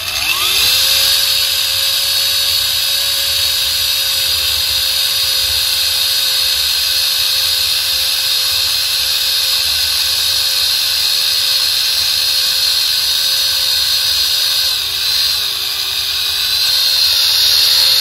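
Homemade remote-control model tractor's electric drive motor whining steadily as it pulls a cultivator through sand on a freshly fitted battery. The whine rises in pitch as it sets off and dips briefly about fifteen seconds in.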